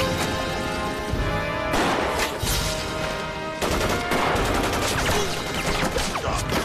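Battle-scene gunfire: rapid volleys of rifle and machine-gun fire, heaviest in two stretches, about two seconds in and again around the middle, over background music with sustained tones.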